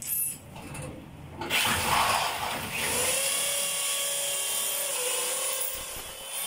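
Electric drill starting about a second and a half in and running with a steady whine for several seconds, easing off near the end.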